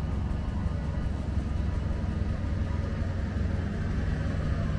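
A steady, low engine rumble running evenly without changing.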